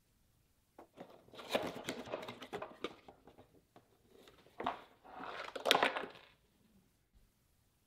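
Long cardboard box being handled and opened by hand: about two seconds of cardboard rustling and tearing, a sharp knock, then a second burst of scraping and rustling with a sharp knock in it as the box is stood end-down on a stone countertop.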